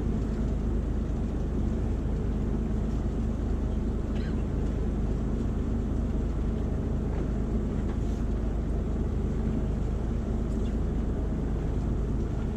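Fishing boat's engine running steadily: a continuous low drone.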